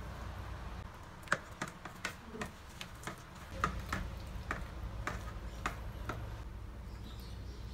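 Silicone spatula clicking and scraping against a stainless steel mixing bowl as thick cream cheese is stirred with sugar: irregular light clicks, about two a second, that stop about six seconds in.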